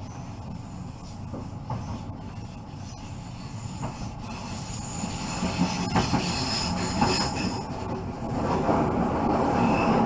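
Newag Impuls electric multiple unit running, heard from the driver's cab, growing louder from about halfway through. Its wheels grind and give thin high squeals against the rails, loudest near the end.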